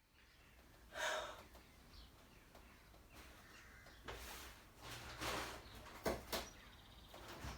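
A man sighing and breathing out heavily, in short puffs a few seconds apart, with two quick knocks about six seconds in.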